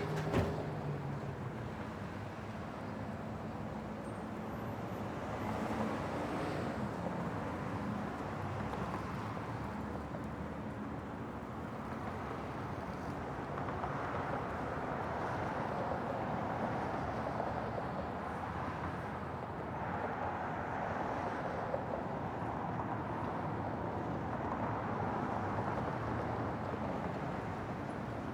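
Gas station exterior ambience: a steady wash of vehicle and traffic noise that swells and fades several times as vehicles come and go. A sharp knock comes about a third of a second in.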